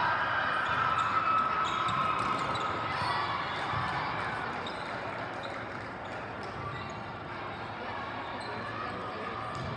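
Volleyball rally echoing in a large hall: scattered sharp ball contacts, bounces and shoe squeaks on the court over a steady murmur of players' and spectators' voices. The voices are strongest in the first few seconds.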